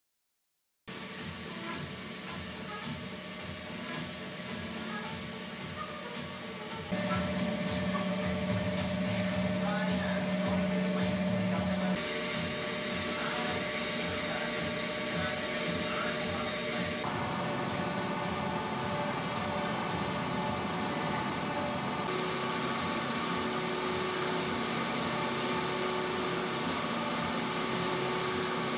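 Wabeco D6000 lathe running under its three-phase motor, fed by a frequency inverter and driving the spindle through belts and the countershaft: a steady machine hum with a high steady whine on top. The sound starts about a second in and shifts abruptly to a new pitch several times as the spindle speed is stepped up to about 2,000 rpm.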